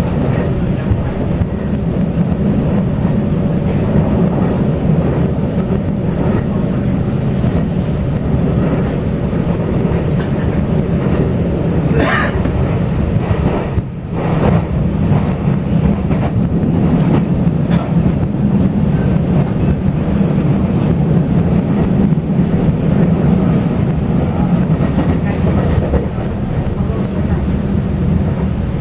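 Passenger train running, heard from on board: a steady loud rumble of the wheels on the rails, with one brief sharp noise about twelve seconds in.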